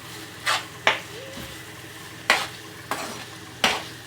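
A cooking utensil stirring and scraping a shredded chicken and onion filling in a frying pan, about five short scrapes, over a faint sizzle of the frying.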